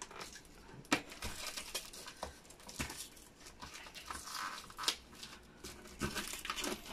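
Clear plastic packing tape being picked at and peeled off a cardboard box: irregular crinkling and crackling, with a few sharp snaps.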